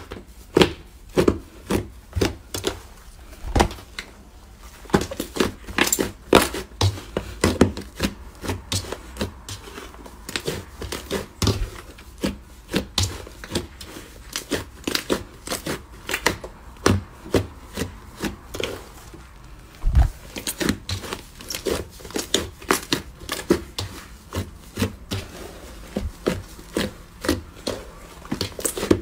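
Slime being worked by hand, giving a steady run of irregular sharp clicks and pops.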